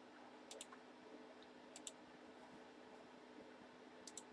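Faint computer clicking in a quiet room: a few short, sharp clicks, some in quick pairs, about half a second in, near two seconds and near the end.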